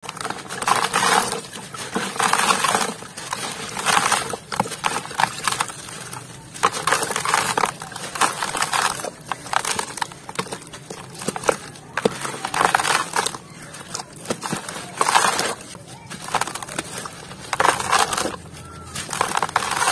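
A large gritty, sandy chunk being crumbled by hand over a tub of water, crunching in bursts about every second and a half, with crumbs pattering and plopping into the water.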